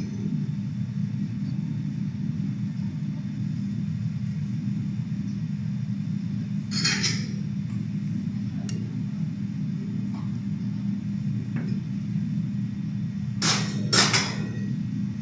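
A steady low hum, like kitchen machinery, runs throughout. Over it come a few brief scrapes of a spoon spreading barbecue sauce on pizza dough in a metal baking tray; the loudest two come close together near the end.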